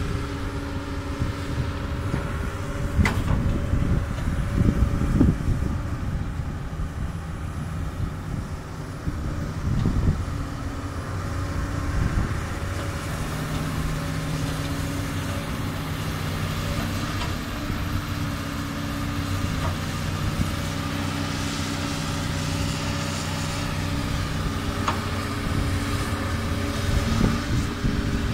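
Doosan DX200 excavator's diesel engine running steadily as it works, its hum shifting in pitch partway through, with a few short knocks, the loudest about 3 seconds in.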